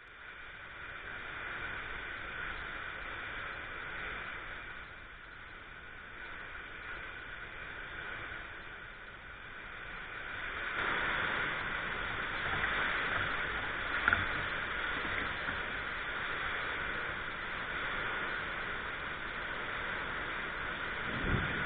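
Heavy rain mixed with hail pouring down in a gusty storm: a steady hiss that grows louder about halfway through, with one sharp knock a little after that.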